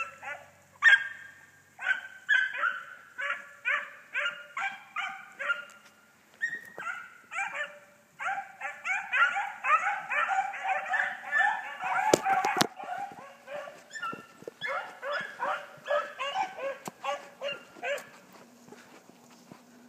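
A pack of hounds baying on a run: many short barks, several dogs overlapping, several a second, that thin out and stop near the end. A single sharp knock about twelve seconds in.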